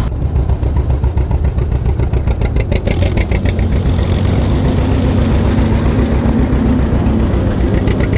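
Antique farm tractors driving past one after another on gravel, their engines running with an even beat of exhaust pulses. A John Deere two-cylinder passes close about halfway through.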